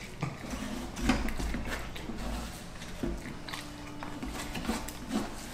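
Close-up chewing and biting of food, with many short wet mouth clicks and smacks.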